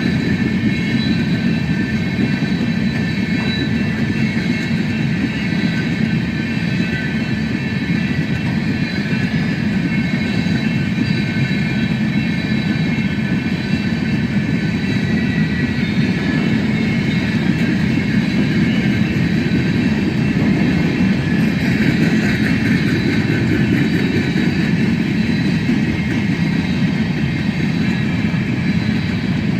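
Coal train rolling past: a steady rumble and clatter of railcar wheels on the rails, with several steady high tones over it.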